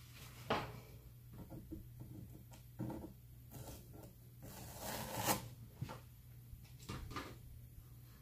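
Handling noises from craft work: a few light knocks and taps, with a short rubbing, scraping sound about five seconds in, over a low steady hum.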